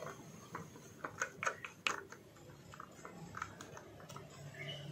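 Faint, scattered plastic clicks and taps from hands unscrewing the plastic spinner cap that holds a three-blade fan blade on an electric fan's shaft.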